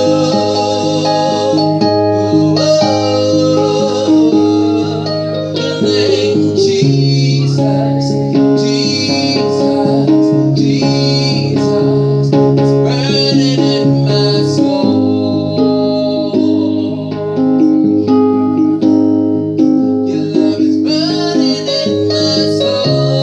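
Worship music: keyboard and guitar playing held chords that change every second or two, with singing.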